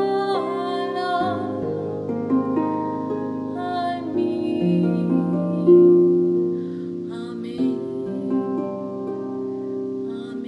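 Harp played by hand: plucked notes and chords that ring on and overlap. A woman's voice sings the closing Aramaic words over it in the first second or so, then the harp carries on alone.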